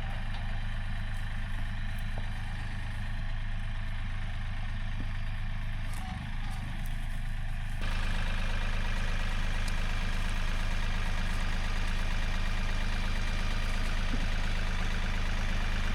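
A heavy machine's engine running steadily as it comes down a steep side-hill slope. About halfway through, the sound becomes a little louder and harsher.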